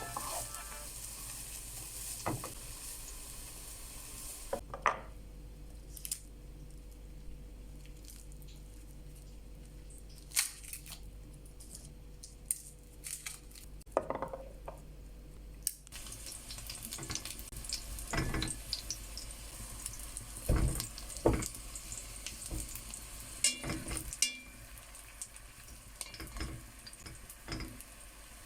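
Kitchen cooking sounds: scattered clinks and knocks of utensils against pots and dishes, with a sizzling hiss that picks up about halfway through.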